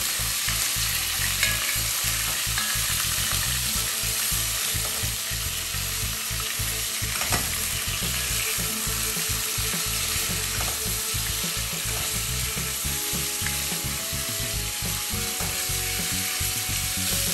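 Beef and onions sizzling as they fry together in a pot, steady throughout, with a few faint knocks of a spoon stirring.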